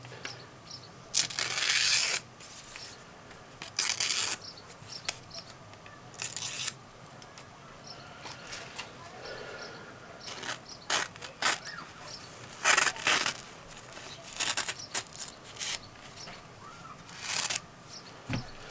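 Paper rustling and being sliced against a freshly sharpened knife edge, in short scratchy bursts every second or two, as a test of the edge's sharpness.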